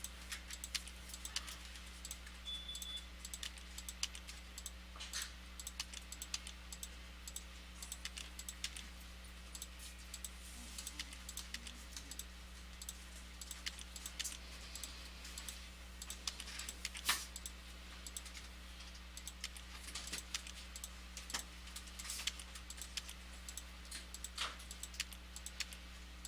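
Computer keyboard typing and clicking in short, irregular runs of keystrokes, over a steady low electrical hum.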